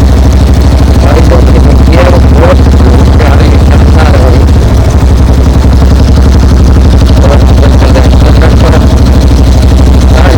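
Royal Enfield Bullet Standard 350 single-cylinder engine running steadily and loud through an aftermarket bend-pipe exhaust.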